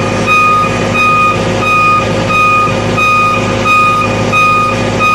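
XCMG XGS40K boom lift's motion alarm beeping evenly, about three beeps every two seconds, over the steady hum of its running engine while the boom is being operated.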